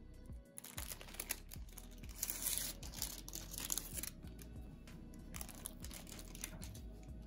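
Baking parchment rustling and crinkling as it is peeled off the side of a cake, in two bouts, over background music.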